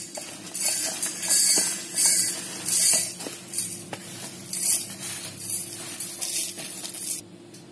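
Dry-roasted whole spices (coriander seeds, dal and dried red chillies) being pushed off a steel plate into a steel mixer jar, rattling and hissing in a series of short pours about once a second. The pours stop shortly before the end, over a low steady hum.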